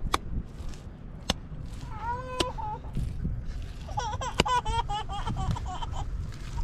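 A few sharp slaps as handfuls of wet mud are thrown by hand onto a mud-and-stone wall. High, wavering voice-like calls come in briefly about two seconds in and again for a second or so from about four seconds in, and they are the loudest sound.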